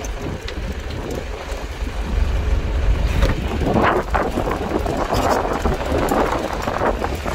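Steady low rumble of a fishing boat at sea, with wind on the microphone. From about three and a half seconds in there is a louder, noisy commotion as a large fish is landed on the deck.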